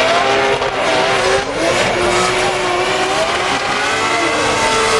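Drift car's engine revving up and down with the throttle through a slide, over tire squeal.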